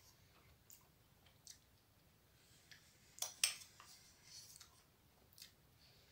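Metal spoon clinking and scraping against a ceramic bowl while ice cream is eaten: a few short, faint clicks, the loudest pair about three and a half seconds in.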